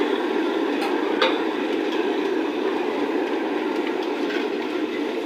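Steady sizzle of jalebis frying in a large iron karahi of hot oil, with a couple of light clicks about a second in.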